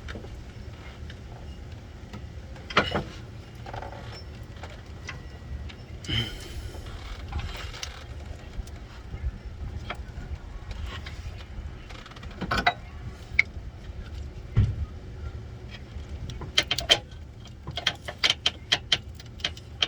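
Scattered clicks and knocks of hands and tools working parts and plastic tabs loose around a car's AC compressor, with a quick run of clicks near the end, over a steady low rumble.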